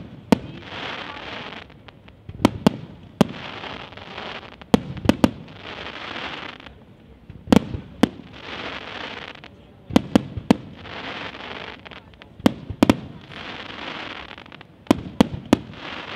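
Aerial firework shells bursting with sharp bangs, in clusters of one to three about every two and a half seconds. After each cluster comes about a second and a half of crackling hiss from the glitter stars.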